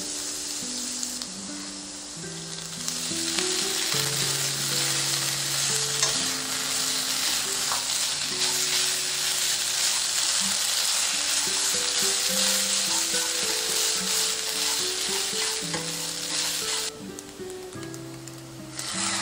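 Minced garlic and then strips of Korean fish cake sizzling in oil in a frying pan as they are stir-fried on medium-low heat. The sizzle grows louder about three seconds in and drops away near the end, over soft background music.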